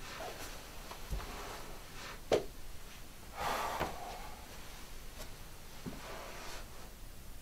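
A person moving about a small room: faint steps, a sharp knock about two seconds in, and a short rustling hiss a second later.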